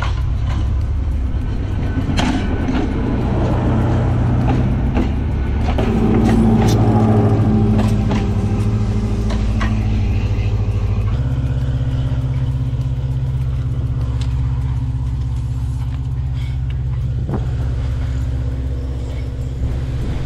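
A heavy vehicle running with a steady low engine hum, with scattered sharp clicks in the first half. The hum changes to a different steady note about halfway through.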